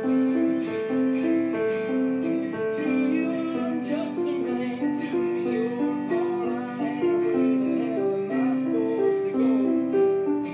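Piano playing a steady, repeating pattern of notes over a backing recording with acoustic guitar.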